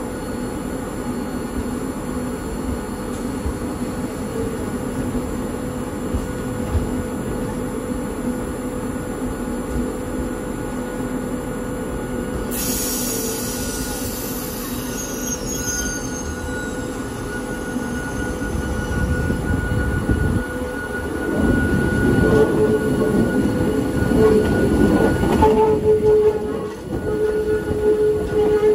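Old Hakone Tozan Railway electric railcar running, heard from aboard, with a steady rumble. From about three-quarters of the way in it gets louder and the wheels squeal in a steady tone that keeps breaking off and returning, the flange squeal of wheels on a tight mountain curve.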